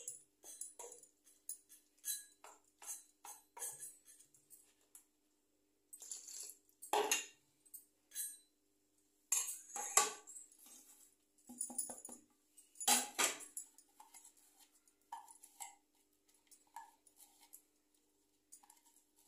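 Hand-mixing rava batter in a steel bowl: bangles on the working wrist jingle and clink against the bowl, and a spoon clinks on the steel. A few louder scrapes and knocks come about 7, 10 and 13 seconds in.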